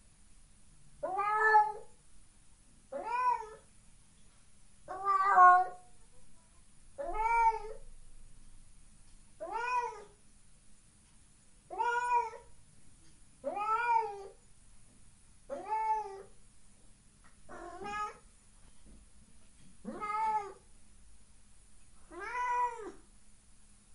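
A domestic cat meowing over and over, about eleven separate meows roughly two seconds apart, each rising and then falling in pitch.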